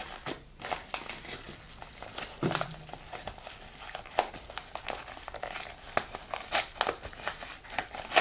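Shipping parcel packaging crinkling and rustling with irregular sharp crackles as it is torn and pulled open by hand.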